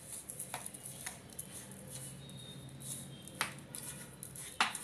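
Semolina and yogurt being mixed in a bowl: a gritty scraping rustle with a few sharp clicks, the loudest just before the end.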